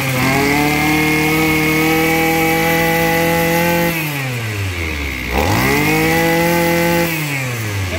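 Maruyama brush cutter's small two-stroke engine revved up to full throttle and held there for about four seconds. It drops back to a low idle and is then revved up again for about a second and a half before falling back.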